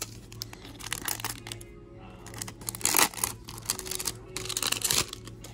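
Crinkly rustling and tearing of trading-card booster pack wrappers and cards being handled, in several short bursts, the loudest about three seconds in and near the end. Soft background music plays underneath.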